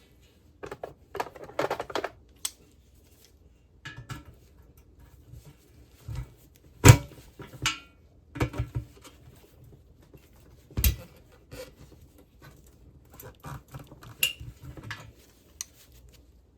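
Pliers and metal tools clicking and knocking against a plastic power-cord socket and its steel frame while the socket's side clips are squeezed to push it out. Scattered sharp clicks and taps, with a louder knock about seven seconds in and another about eleven seconds in.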